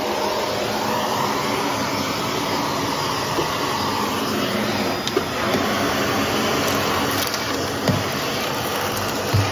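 Shark stick vacuum running steadily on carpet with its brushroll spinning, picking up small debris. A few short knocks come through, about five and eight seconds in and again near the end.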